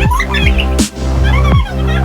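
Electronic dubstep-style background music with a heavy bass line. Bass notes slide down in pitch over and over, and a sharp snare-like hit falls about once every second and a half.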